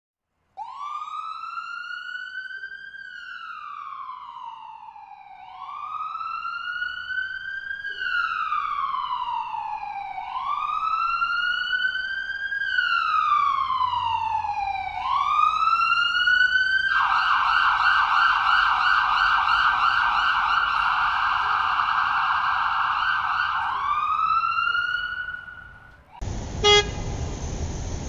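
Ambulance siren: a wail rising and falling about every two and a half seconds, changing to a fast warbling yelp for about seven seconds, then back to the wail. Near the end it cuts off and gives way to steady road noise with one short loud blip.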